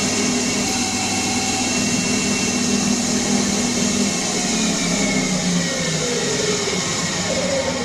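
CNC lathe running: a loud, steady machine noise with a hum. In the last few seconds a whine falls in pitch.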